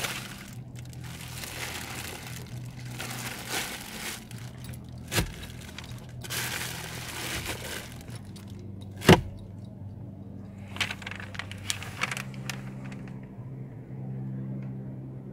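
Clear plastic wrapping in a car's glove box crinkling as it is handled, in several stretches. There is a sharp snap about five seconds in and a louder one about nine seconds in, and a few light clicks follow.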